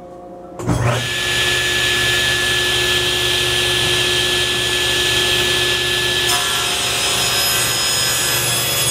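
A table saw's motor switches on about half a second in, spins up quickly and runs steadily. About six seconds in the sound changes as the blade begins ripping a thick board of soft maple.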